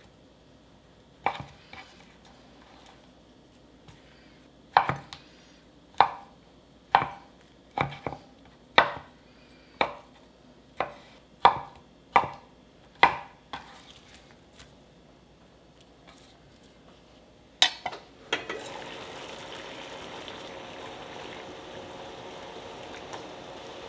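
Kitchen knife chopping on a cutting board in slow, even strokes, about one a second, with a few scattered cuts before and after. About three-quarters of the way through, a steady hiss starts and carries on.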